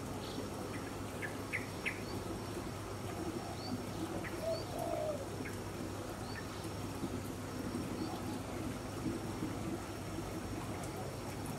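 Birds calling in a tropical garden: short high chirps scattered throughout, with a lower call about four and a half seconds in, over a steady background hum.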